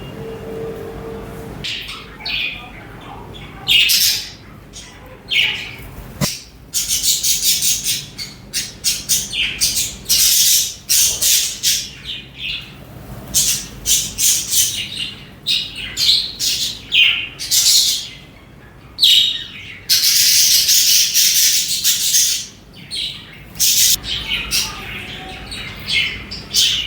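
Budgerigars chirping and chattering in quick high-pitched calls, starting about two seconds in and going on almost without a break.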